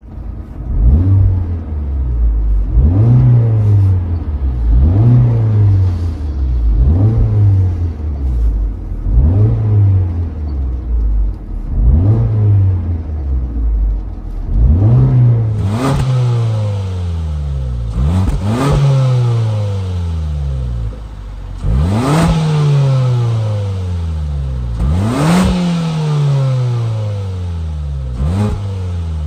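Car engine free-revved while stationary: repeated quick throttle blips, each a sharp rise in pitch that falls back more slowly toward idle, about every two seconds at first. Heard from inside the cabin by the pedals, then about halfway through from outside at the tailpipe, where the later revs are spaced further apart and fall away more slowly.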